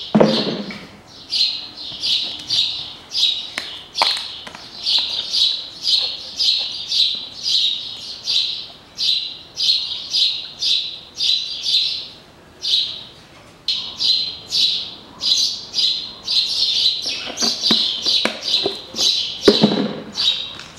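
A small bird chirping over and over, about two chirps a second, with a few short pauses. A brief low sound near the end is the loudest moment.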